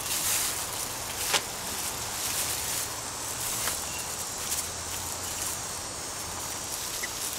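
Steady high-pitched insect chorus, with a few light clicks of handling.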